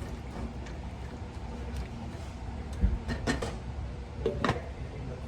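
A few sharp knocks and clinks of cookware on a stovetop pot, about three seconds in and again near the end, over a steady low hum.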